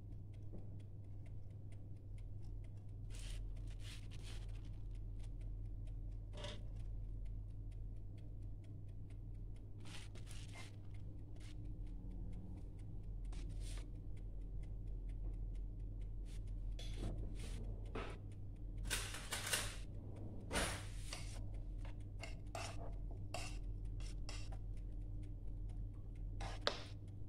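Rice being spread and pressed by hand into a cooking pot: soft, scattered rustles and scrapes over a steady low hum, with a sharp metal clink near the end as a spoon meets the pot.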